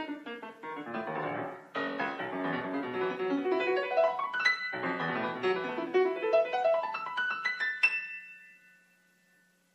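Solo piano playing fast, dense runs of notes in a slightly aleatoric piece; the flurries break off twice, climb to a high, sharp accent near the end, and the last notes ring out and fade away.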